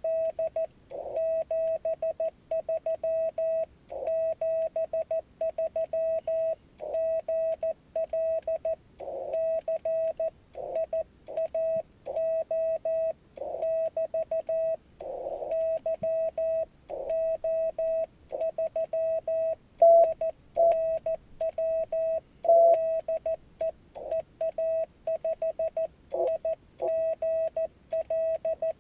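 Morse code (CW) tone from a Yaesu FT-817D transceiver, a single steady note keyed on and off in dots and dashes at a slow sending speed.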